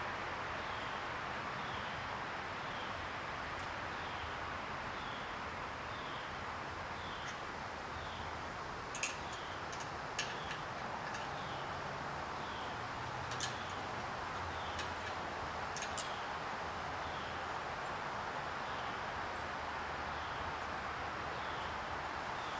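Outdoor ambience with a steady hiss. A bird gives a short falling chirp about once a second throughout, and a few sharp clicks come in the middle.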